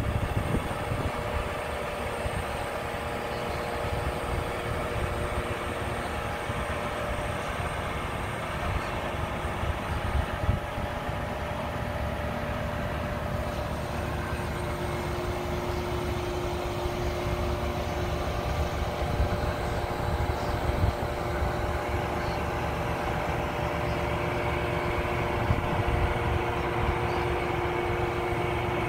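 Crane lorry's engine running steadily while its hydraulic crane lifts and swings a load, a low drone with steady whining tones over it; a further, lower whine sets in about halfway through.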